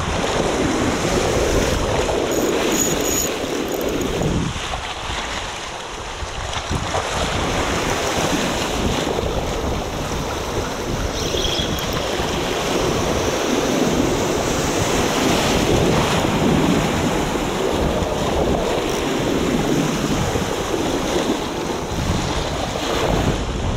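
Sea surf washing against shore rocks, with wind buffeting the microphone.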